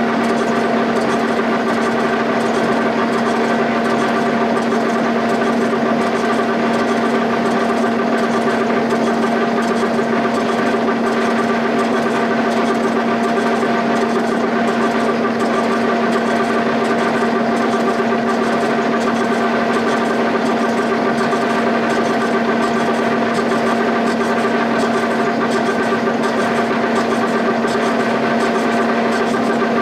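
Milling machine running with a loud, steady hum as its face mill decks the top of an overheated Cummins 4B block, taking the warp out of the deck.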